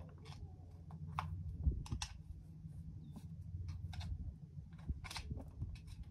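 A horse's hoof being cleaned out by hand: irregular scratchy clicks and scrapes as the dirt is picked from the sole, over a low steady rumble.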